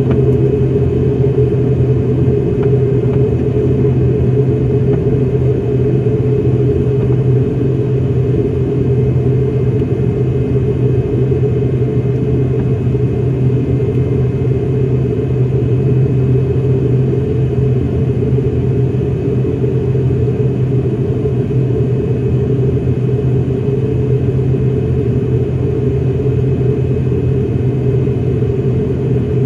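The ATR 42-600's Pratt & Whitney PW127 turboprop engines running steadily on the ground before takeoff, heard from inside the cabin: a loud, even propeller drone with a low hum and a faint high whine.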